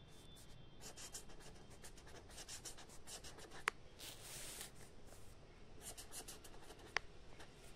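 Pen writing on paper: a run of short, faint scratching strokes, with two sharp clicks, one near the middle and one near the end.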